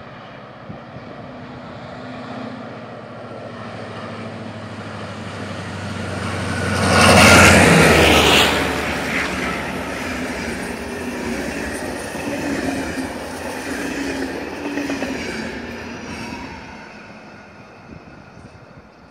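TCDD DE 22000 diesel-electric locomotive (EMD G26CW-2 with a 16-cylinder EMD 16-645E engine) hauling a passenger train past. The engine drone builds and peaks about seven seconds in, dropping in pitch as the locomotive goes by. The coaches then roll past with wheel-on-rail noise that fades near the end.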